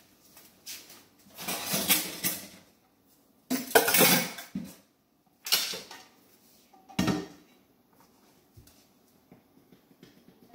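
Stainless steel inner pot of an 8-quart Instant Pot clattering as it is handled and set into a kitchen sink, in about five loud bursts of up to a second each, the last about seven seconds in.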